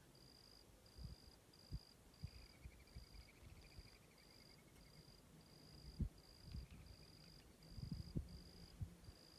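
Quiet evening outdoors with an insect chirping in a high, steady rhythm of about two chirps a second. A faint, slightly falling trill comes a couple of seconds in, and soft low thumps sound now and then, the loudest about six seconds in and again near eight.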